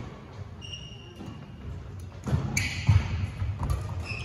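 A singles racket-sport rally in a sports hall: a loud racket strike about two and a half seconds in, with high squeaks of court shoes and low footstep thuds on the floor around it.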